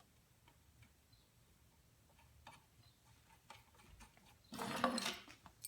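Small metal parts being handled while a drill press head is taken apart: a few light clicks, then a short metallic clatter about four and a half seconds in.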